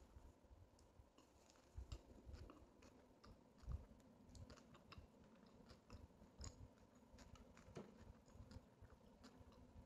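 Faint chewing of a mouthful of chicken shawarma wrap: scattered soft mouth clicks and low thumps, a little louder a couple of times, most of all about four seconds in.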